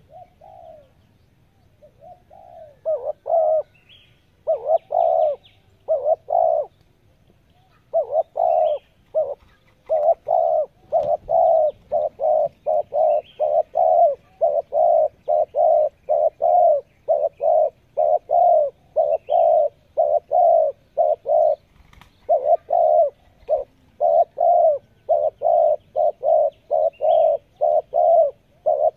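Spotted dove cooing: a few scattered coos, then a long, fast run of short, evenly spaced coos, about two a second, with a brief pause partway through. Faint high chirps of small birds come in now and then.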